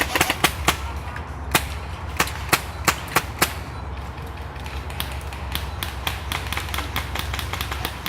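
Airsoft gunfire: scattered sharp single shots, about nine in the first three and a half seconds, then a run of fainter, quicker shots from farther off over the last three seconds.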